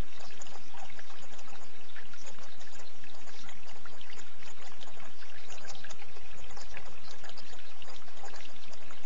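Running water trickling, steady and unbroken, with many small splashes and drips.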